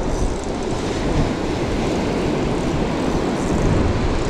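Steady wind buffeting the microphone, a heavy low rumble, over the wash of surf breaking on the beach.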